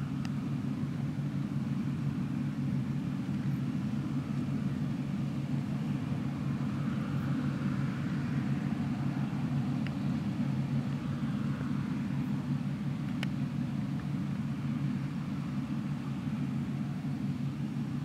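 Claas Dominator 108 combine harvester running steadily while harvesting wheat: an even, low diesel drone with no change in speed.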